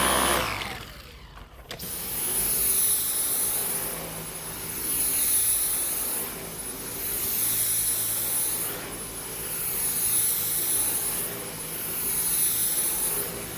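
Dyson V10 cordless stick vacuum running with a thin high motor whine. It cuts out briefly about half a second in and starts again just before two seconds. Its motorized power head is then worked across carpet, the noise swelling and fading about every two and a half seconds.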